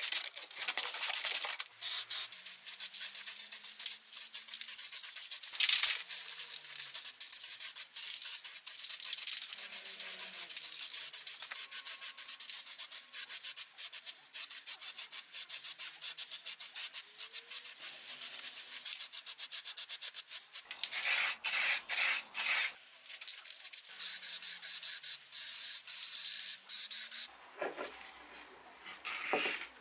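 Sanding by hand with abrasive paper, in quick back-and-forth strokes, with a few short pauses.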